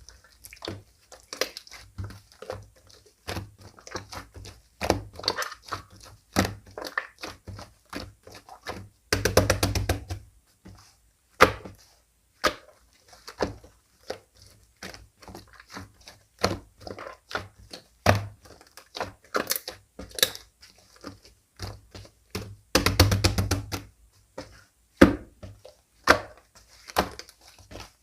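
Slime being squished and pressed by hand, giving steady sticky clicks and pops, with two spells of rapid crackling, one about a third of the way in and one near the end.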